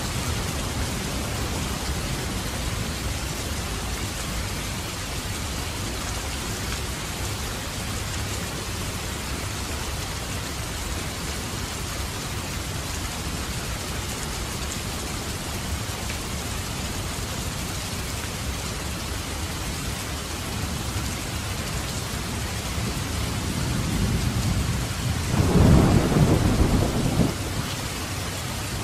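Steady rain falling, with a low rumble of thunder that builds near the end and is loudest just before it fades.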